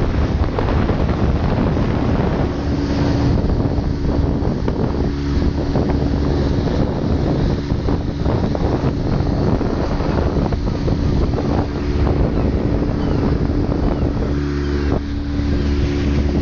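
A small motorboat's engine runs steadily with an unchanging hum as the boat travels. Wind buffets the microphone over it.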